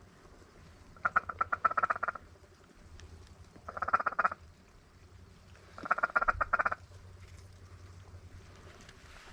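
Mallard feeding chuckle: three bursts of rapid clucking, each about a second long, a few seconds apart.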